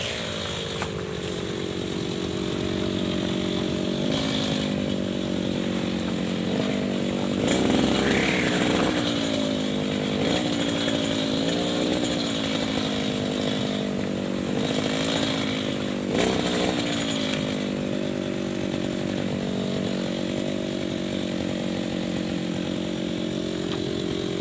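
Petrol brush cutter with a nylon trimmer line head, its engine running steadily, the pitch dipping and rising a little every few seconds.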